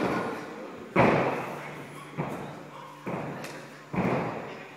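A gymnast's feet and body hitting a spring floor during a floor routine: five heavy thuds roughly a second apart, the loudest about a second in, each ringing on briefly in the gym hall.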